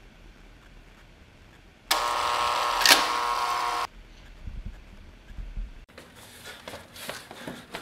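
A loud electric buzz lasting about two seconds, switching on and off abruptly, with a sharp click partway through. It is followed by faint scattered taps like footsteps.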